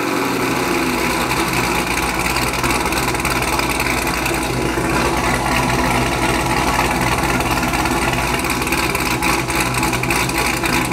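Big-cammed Chevrolet Camaro engine idling steadily through a new Corsa exhaust, moments after a cold start.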